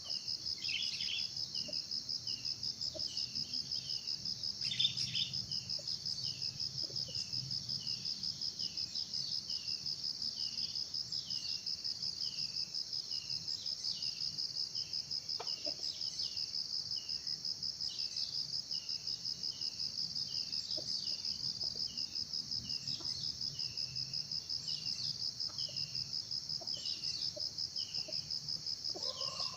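Crickets trilling in a steady, high, fast-pulsing chorus. Beneath it, a lower short chirp repeats about every ¾ second.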